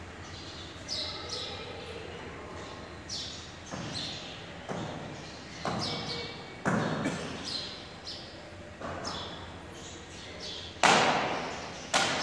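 A series of irregular dull thumps and knocks, each trailing off, with light rustling between them; the two loudest come near the end.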